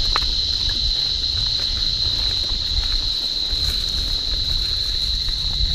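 Cicadas droning in a steady, high-pitched chorus over the low rumble of wind and a mountain bike's tyres rolling down a dry dirt trail.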